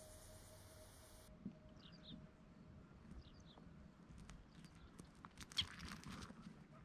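Near silence with faint scratching and clicking of a little owl's claws on concrete as it scrambles into a burrow hole, including one sharp click near the end. A few faint high chirps come earlier.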